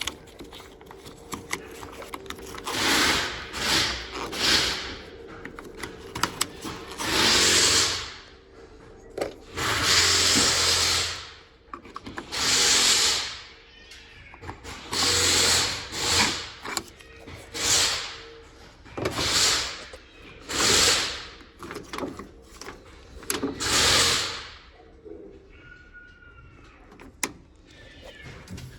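A handheld power tool run in about a dozen short bursts of a second or so each, with small handling noises in between, while the door latch and handle hardware is worked on.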